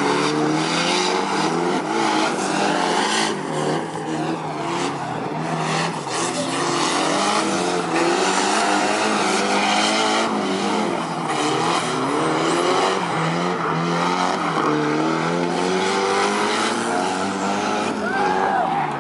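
Drift cars sliding around a tight course: engines revving up and down repeatedly over the steady hiss and squeal of spinning tyres.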